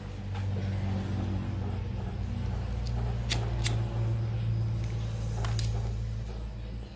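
Traxxas TRX4 RC crawler switched on, giving off a low steady electric hum, with a few sharp clicks in the middle.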